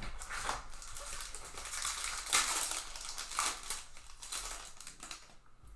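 Plastic wrapper of a 2009 Upper Deck Signature Stars baseball card pack crinkling and tearing as the pack is opened. The crackling is loudest about halfway through.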